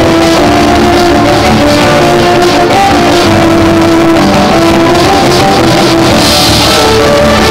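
Live instrumental cello rock: three cellos bowing sustained, overlapping notes, with a bright cymbal-like wash about six seconds in.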